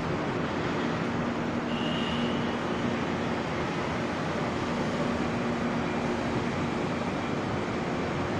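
Steady city road traffic noise with a faint low hum, and a brief faint high tone about two seconds in.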